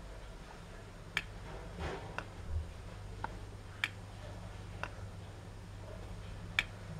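Small home-made solar Stirling engine in a clear plastic wheel ticking: sharp single clicks at uneven intervals, about six in seven seconds, as the wheel rocks back and forth.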